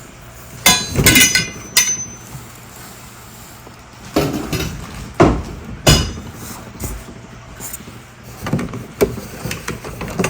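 Hard plastic prop parts and their packaging being handled and set down: a run of irregular sharp knocks and clatters, some with a short clinking ring.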